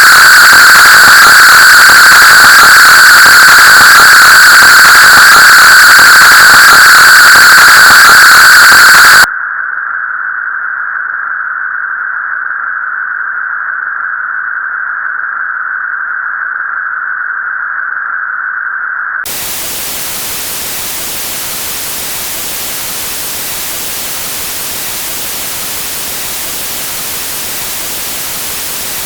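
Synthetic white noise generated in Csound and passed through its filter opcodes. For about the first nine seconds it plays very loud, coloured by repeated areson filtering into a hiss with a strong mid-pitched band. It then drops to a quieter, narrow band of hiss around one pitch for about ten seconds, and from about 19 s it switches to plain unfiltered white noise.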